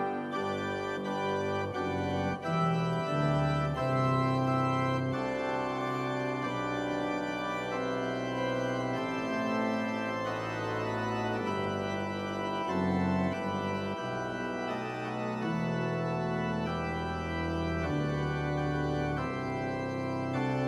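Organ playing slow, held chords, the bass notes moving every second or two.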